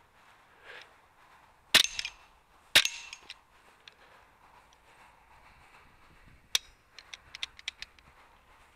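Two shots from a moderated semi-automatic PCP air rifle, the Altaros SA Assassin, fired about a second apart, each a sharp crack with a short ring after it. Some seconds later a click and then a quick run of small clicks as the rifle is handled.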